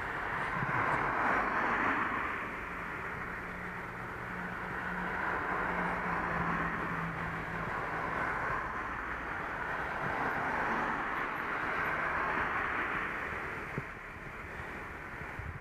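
Road traffic and wind noise on a moving camera's microphone, with a steady low engine hum through the first half.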